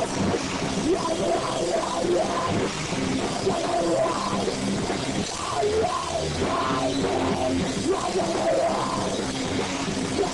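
A rock band playing live: a drum kit with cymbals and electric guitars, dense and continuous.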